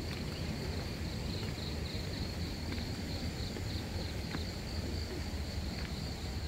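Crickets chirping steadily in a high, even trill, with a low rumble underneath.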